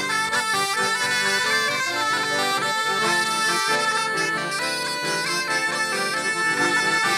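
Traditional Breton dance music: a bagpipe melody of quick notes over a steady drone, with accordion.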